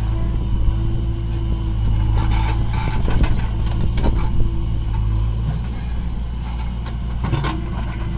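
Steady diesel engine rumble from a JCB 3DX backhoe loader working beside an Eicher 551 tractor. Scattered knocks are heard as the backhoe bucket digs into the soil and tips it into the tractor's trolley.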